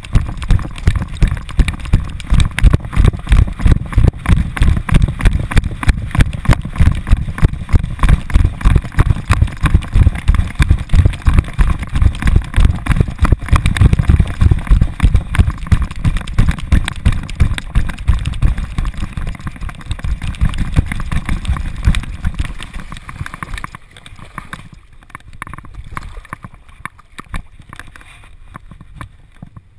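A dog's running strides jolting a GoPro strapped to its back: a rapid, loud run of rhythmic thumps with rushing noise. About 23 seconds in the thumping stops and only quieter, scattered rustling remains as the dog comes to a halt.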